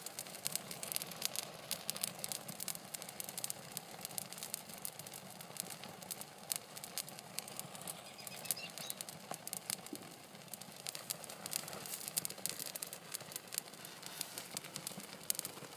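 Old Christmas tree burning in an open fire, crackling with a dense run of small irregular pops and snaps.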